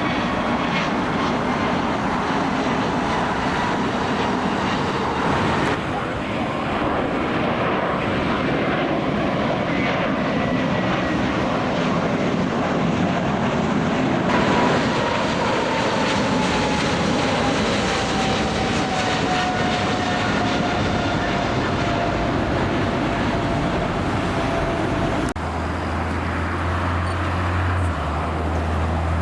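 Jet airliner engines running as the plane passes, a steady roar with a whine that falls slowly in pitch. A low hum joins about four seconds before the end.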